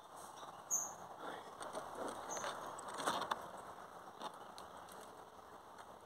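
Faint rustling with scattered light ticks and a few sharper clicks around three seconds in, and two short high chirps from a small bird, the first under a second in.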